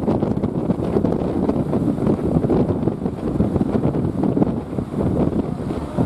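Strong wind buffeting the microphone: a loud, gusting low rumble.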